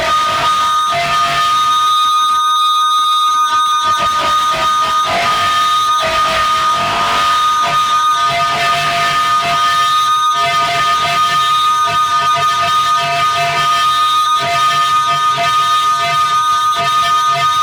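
No-input mixer feedback: several steady high-pitched tones held over a shifting noisy hiss. A lower hum comes and goes beneath them.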